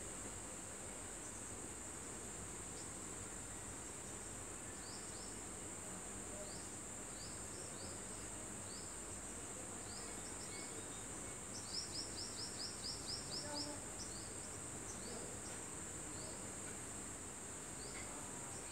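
Night insects keeping up a steady high-pitched drone, with short high chirps dotted through it and a quick run of about ten chirps near the middle.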